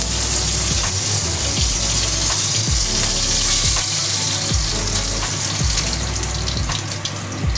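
Flour-dusted fish head and bones frying with ginger slices in shallow oil in a nonstick wok, a steady loud sizzle, with a wooden spatula now and then clicking against the pan.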